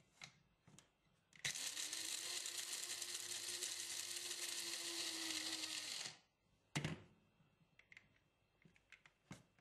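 Krups electric blade coffee grinder running steadily for about five seconds, grinding dried ogbono seeds to powder, then stopping. A single knock follows shortly after.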